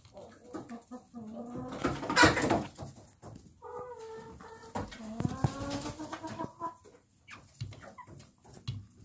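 Young hens making short clucking and trilling calls as they peck at food in a plastic bowl, with a few sharp taps. A brief loud burst of noise comes about two seconds in.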